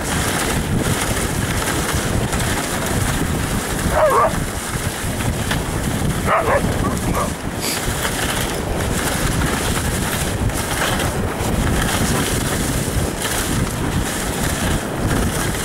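Dog sled running over snow behind a husky team: a steady rush of runners and wind on the microphone. A dog gives short yelps about four seconds in and again twice around six to seven seconds.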